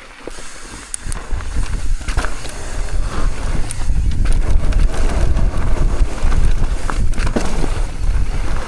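Mountain bike rolling fast down a loose dirt trail: wind buffeting the camera microphone and tyres running over dirt, building from about a second in, with a few sharp knocks from the bike.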